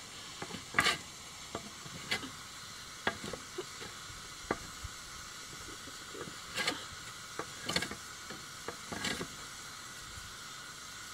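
A hand plane shaving a wooden board in short, irregular scraping strokes, with light clicks between them, over a steady background hiss.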